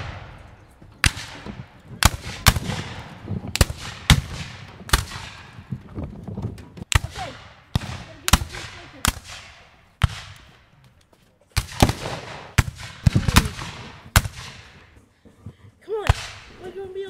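Battle gunfire: sharp shots at irregular intervals, often about one a second, each trailing off in a long echo, with a brief lull about two-thirds of the way through. A voice calls out faintly near the end.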